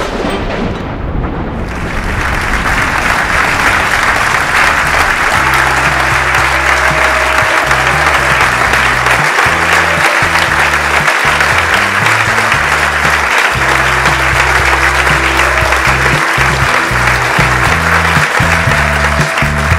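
Theatre audience applauding a curtain call: dense, steady clapping that swells in over the first two seconds. Under it runs background music, with a low bass line that comes in about five seconds in.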